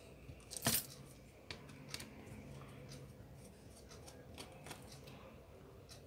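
Small clicks and taps of hand tools and small parts being handled on an opened tablet, with one louder click about a second in and a few lighter ones after.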